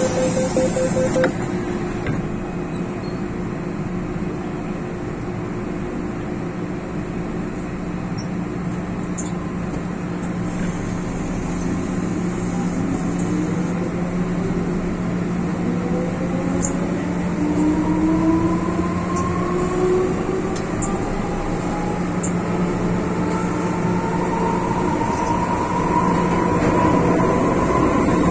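Inside an MTR M-Train electric multiple unit, a steady hum runs throughout. From about halfway through, the traction motors whine in several tones that rise steadily in pitch as the train picks up speed.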